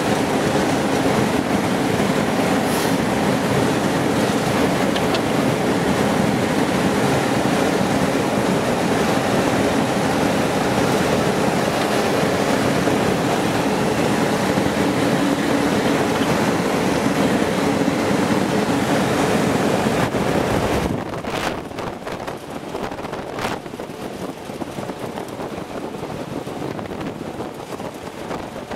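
MRAP fitted with a front mine roller, driving: a steady, loud rumble of engine, tyres and rattling roller. About 21 seconds in it gets quieter, with a few short knocks.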